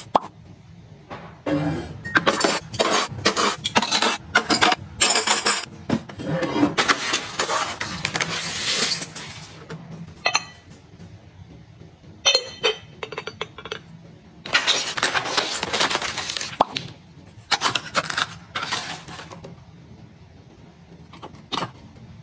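White ceramic spoons and a ceramic lidded box clinking and knocking as they are handled and set down. Between the clinks, plastic packaging rustles in several longer stretches.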